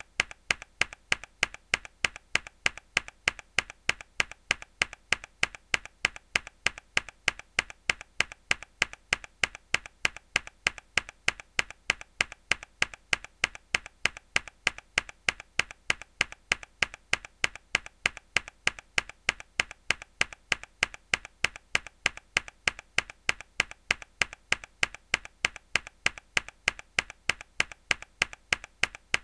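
A mechanical keyboard key pressed hard again and again: an even, rapid series of sharp clicks with softer clicks in between.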